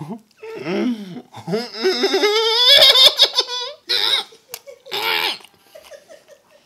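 A man laughing and making wordless vocal sounds with his mouth full, wavering up and down in pitch and loudest in the middle, then a few shorter bursts.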